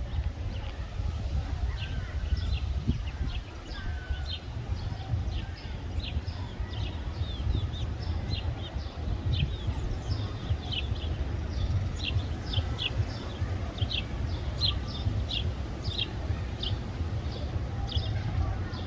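Sparrows chirping: many short, high chirps repeating quickly, busier in the second half, over a steady low rumble.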